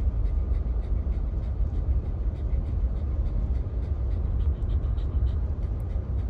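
Steady low road rumble inside a moving car's cabin, with a Shiba Inu panting quickly and evenly close by.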